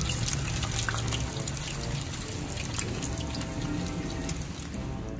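Chicken kababs shallow-frying in hot oil in a pan: a steady sizzle with many small crackling pops.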